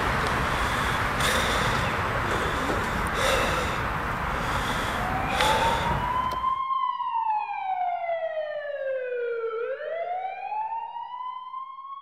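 A loud rushing noise cuts off suddenly about two-thirds of the way in, leaving an emergency vehicle siren wailing alone: one slow rise, a long fall, then a rise again.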